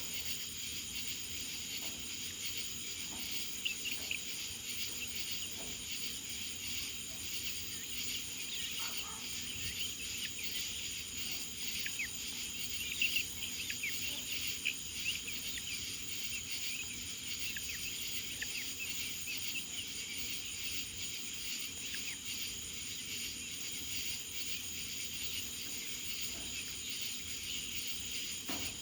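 Steady chorus of crickets or other night insects, a continuous high-pitched trilling with a fine rapid pulsing, dotted with short chirps.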